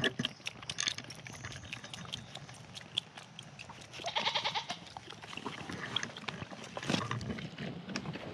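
Bottle-baby goat kids suckling on a feeding bottle's nipple, with many small sucking clicks, and a kid bleating about four seconds in.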